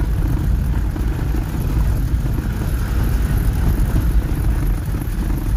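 Steady low rumble of a vehicle's engine and road noise, heard from inside the cab while driving on a snow-covered road.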